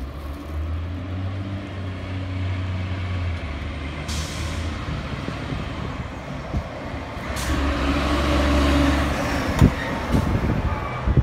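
Fire engine's diesel engine running as the truck drives up and passes close by, louder in the second half, with two short hisses of air brakes. There are a couple of sharp knocks near the end.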